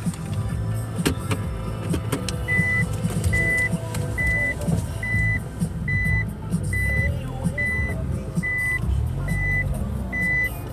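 A car's reverse-gear warning beeper, heard from inside the cabin, starts a couple of seconds in and beeps steadily at a little over one beep a second over the low hum of the idling engine while the car backs up to turn around.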